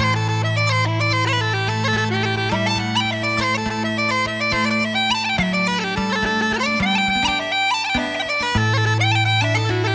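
Uilleann pipes playing a fast, ornamented traditional tune over a steady low drone, with held lower notes changing beneath the melody.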